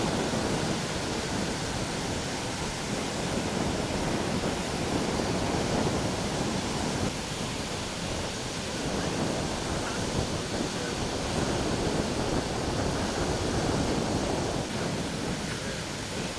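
Sea surf washing onto a beach, a steady rushing noise with wind on the microphone.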